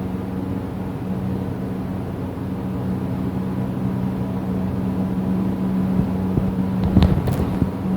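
A steady, low droning hum, likened to a distant motor glider or lawn mower, which the recordist suspects may come from high-voltage power lines. A short knock sounds about seven seconds in.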